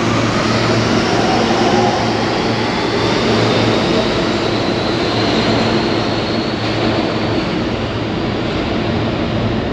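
New York City subway train pulling away on the far track: a steady rumble of wheels on rail, with the traction motors' whine rising in pitch as it accelerates.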